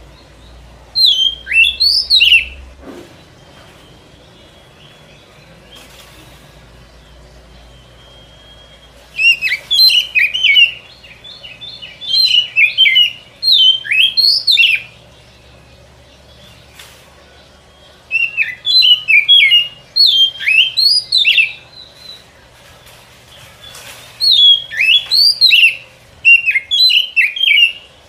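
Oriental magpie-robin (kacer) song played as a lure call: five bursts of rapid, varied whistled notes, each two to three seconds long, separated by short pauses.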